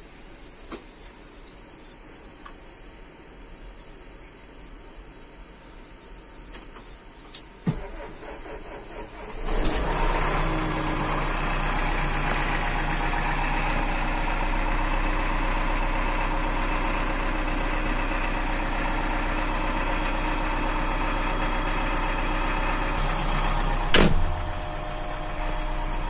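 JCB 3DX backhoe loader's diesel engine started with the key: a steady high beep sounds first, then the engine cranks and catches about ten seconds in and settles into a steady idle. A single sharp knock comes near the end.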